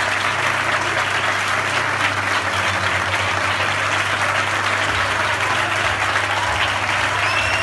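Large theatre audience applauding steadily, a dense, unbroken clapping.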